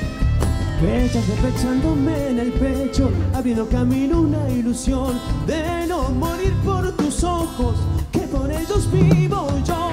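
Live band playing a chacarera on drum kit and other instruments, with a gliding melody line over a steady low rhythm.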